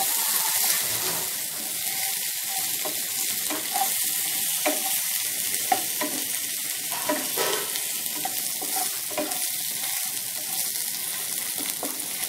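Hot oil sizzling in a frying pan around crisp-fried potato slices and spices, as a spatula stirs and turns them, with occasional short taps and scrapes of the spatula on the pan.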